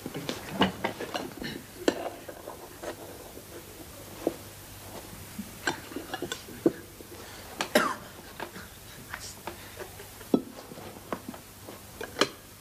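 Scattered, irregular light clinks and knocks of tableware, with faint voices in the room.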